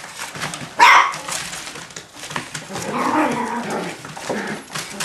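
Kooikerhondje puppies yapping: one sharp, high bark about a second in and a longer, drawn-out yelp around three seconds. Paws scrabble and rustle on the newspaper floor of the pen.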